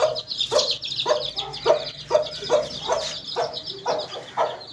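Mother hen clucking steadily to her chicks, about two short clucks a second, over the continuous high peeping of the chicks.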